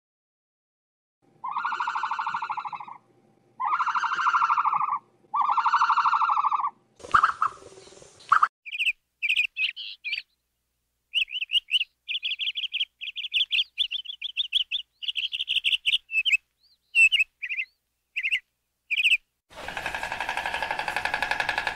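Three drawn-out pitched animal calls, each about a second and a half long, then a short noisy rustle. After that comes a run of quick high bird chirps in short rapid strings for about ten seconds, and music starts near the end.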